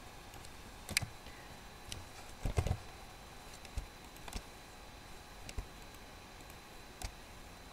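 Computer mouse and keyboard clicks: single sharp clicks spaced irregularly about a second apart, with a quick run of three about two and a half seconds in, while table cells are selected and erased.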